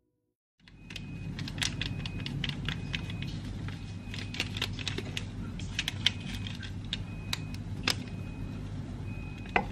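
A metal spoon clicking and scraping against a ceramic plate as flour and seasoning are mixed, in sharp irregular clinks over a steady low hum. The sound starts abruptly about half a second in.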